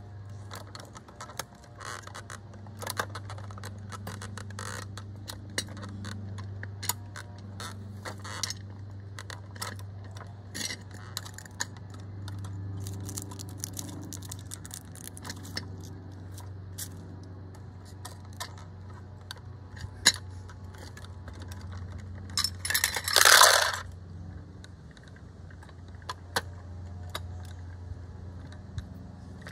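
Light metallic clicks and clinks of a First Gear die-cast toy garbage truck handled by hand, its front-loader lift arms and parts being moved. A short, louder rustling scrape comes about three quarters of the way through, over a steady low hum.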